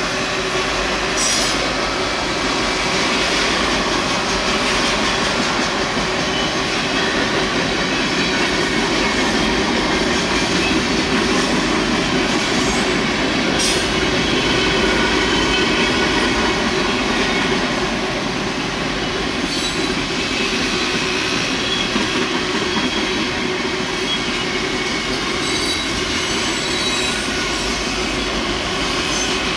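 Freight train of autoracks, gondolas and covered hoppers rolling past at a grade crossing: a steady rumble and rattle of cars and wheels on the rails, with thin high wheel-squeal tones running through it.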